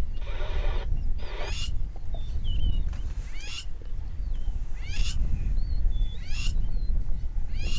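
Wild birds calling over a steady low rumble: one repeats a quick rising call about every second and a half, with short whistled chirps in between.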